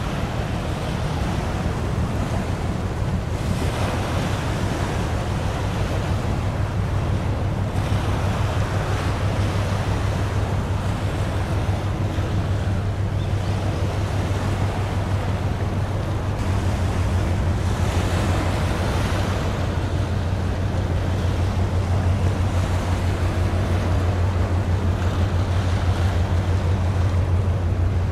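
Low, steady drone of a large container ship's engine, slowly growing louder as the ship passes, over a hiss of wind and washing waves.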